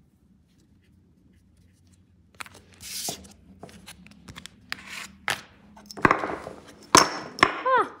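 Quiet at first. About two seconds in, a plastic scraper card scrapes nail-stamping polish across a metal stamping plate. A second scrape and several sharp clicks and taps of the stamping tools follow.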